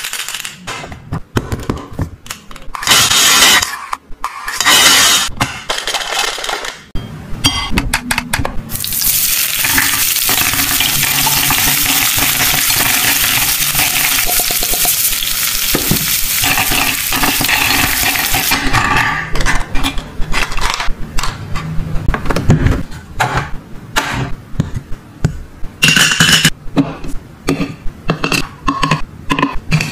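Plastic toy kitchen pieces being handled: clicks, taps and light clatter of toy food, utensils and dishes. For about ten seconds in the middle comes a steady sizzling hiss from a toy electric cooker's frying sound, with toy vegetables in its pan.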